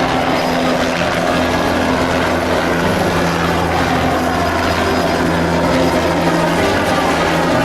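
A helicopter running close by: a loud, steady drone of its engine and rotor.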